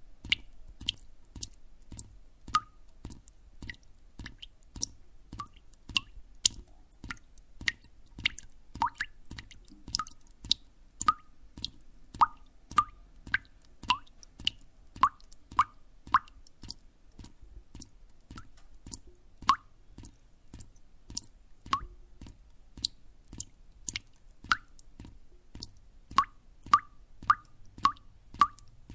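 Water dripping: single drops plopping, roughly two a second and unevenly spaced, each a sharp click, many with a short pitched note.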